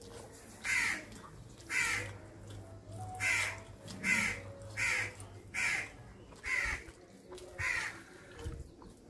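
A crow cawing over and over, one harsh call about every second.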